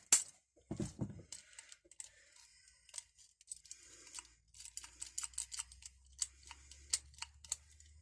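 Irregular small metallic clicks and rattles from a key being worked and the shackle jiggled in an old rusty padlock. The stiff mechanism opens and closes only with agitation, not smoothly.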